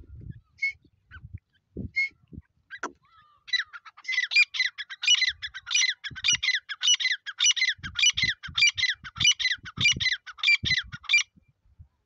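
Grey francolin calling: a few single notes, then from about three and a half seconds a fast series of repeated notes that stops shortly before the end. Low thumps sound faintly underneath.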